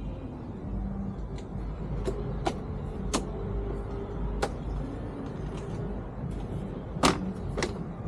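Sharp clicks and knocks of an air horn and the motorcycle's panel being handled and fitted into place, about six in all, the loudest pair near the end, over a steady low rumble.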